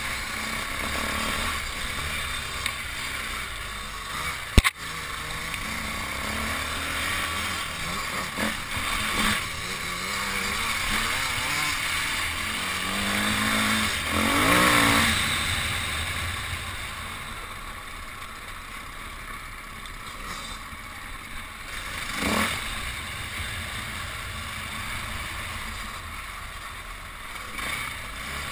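Dirt bike engine running and revving on a trail ride, under heavy wind buffeting on the microphone; the revs build to the loudest stretch about fifteen seconds in. A sharp knock sounds about five seconds in.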